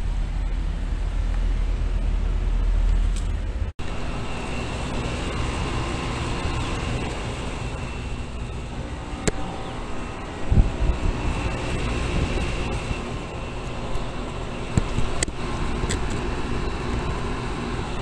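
Residential heat pump outdoor units running: a steady hum of compressor and condenser fan with a rushing of air. About four seconds in the sound shifts from a 2011 Carrier Infinity unit to a group of units including a 2012 Bryant Preferred, with a faint steady high whine and a few light knocks.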